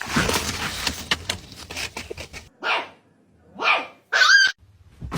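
A dog barking three short, high-pitched barks, after a couple of seconds of clattering and scuffling noise.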